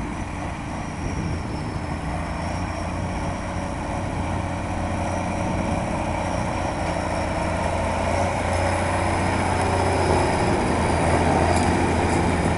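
Nuffield 4/65 tractor's diesel engine working hard as it pulls down the track, its steady drone growing louder as it comes closer.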